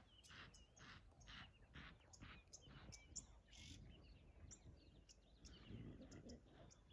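Faint, scattered bird chirps and short calls in a quiet background.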